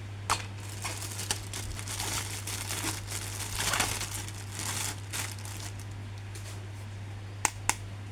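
Plastic toy packaging crinkling and rustling as an action figure is unboxed, loudest in the middle, with a couple of sharp clicks near the end, over a steady low hum.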